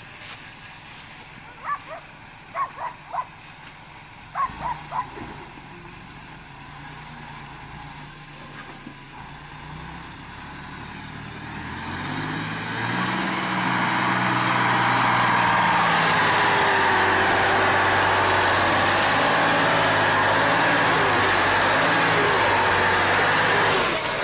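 Engine of a Ural 6x6 truck loaded with logs, faint at first, then growing louder from about halfway as the truck comes close and pulls hard under its load, and running loud and steady with a hiss through the rest. A few short high-pitched calls sound in the first five seconds.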